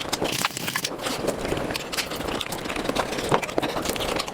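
Close-up mukbang eating sounds of mutton nalli: chewing, smacking and sucking at the meat and bone, sped up so the mouth clicks run together into a fast, dense crackle.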